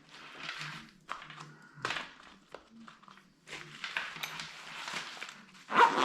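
Small gear being handled and moved about: irregular rustling with a few light clicks and knocks.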